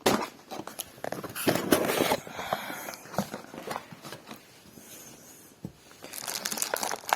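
Webcam packaging being opened and handled by hand: irregular rustling of plastic and cardboard with scattered sharp clicks and scrapes.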